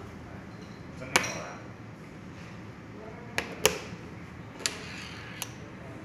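Five sharp clicks and knocks, the loudest about a second in and about three and a half seconds in. They come from the metal connectors of a magnetic Lightning charging cable and an iPhone being handled on a wooden desk.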